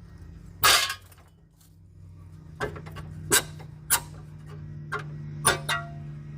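A series of sharp knocks and clicks from hand work on a wrecked car's front-end structure, about seven in all, the loudest a little under a second in, over a steady low hum.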